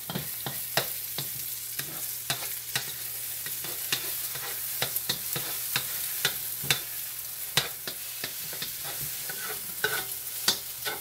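Eggs frying in butter and oil in a wok with a steady sizzle, while a wooden spatula scrapes and clicks against the pan many times at an irregular pace.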